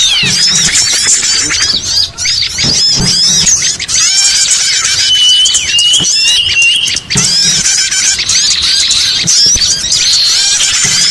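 Small-bird lure call (suara pikat): a dense, loud chorus of many small songbirds chirping and twittering over one another, with a run of short, level, repeated whistles in the middle. It is the kind of recording played to draw small birds such as flowerpeckers and prinias in to be caught.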